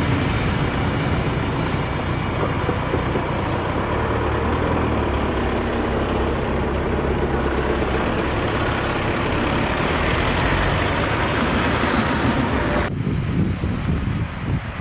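Freight train of tank wagons rolling past: a steady rumble and rolling noise of the wheels on the rails. About 13 seconds in it cuts off suddenly, giving way to gusty wind noise on the microphone.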